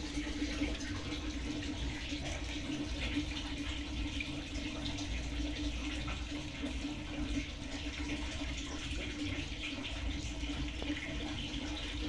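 Rinse water draining out of an Avon washing machine, a steady running-water sound with a faint steady hum underneath.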